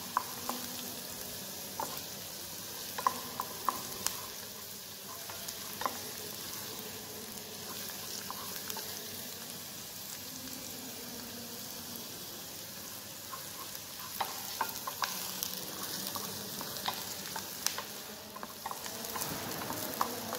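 Chopped onion and garlic sizzling in hot oil in a small saucepan while being stirred with a wooden spatula, sweated to soften without browning. A steady sizzle with scattered sharp clicks.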